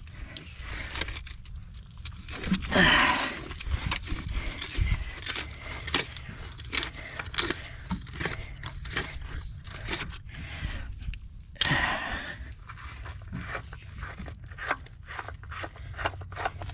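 Close handling noise of a water-line pipe fitting being worked by hand in wet mud: irregular clicks, scrapes and crunches, with two louder rushes of noise about three seconds in and near twelve seconds.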